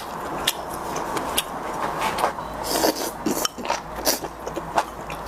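Utensils clinking and scraping against a bowl or plate in a series of short, irregular clicks, with a few brief scrapes.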